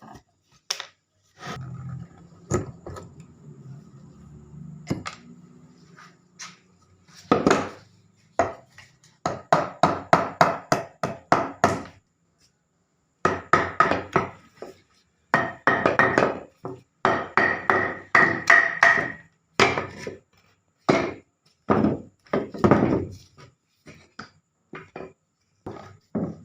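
A hand tool striking wood repeatedly: sharp knocks in quick runs of about three to four a second, with short pauses between runs.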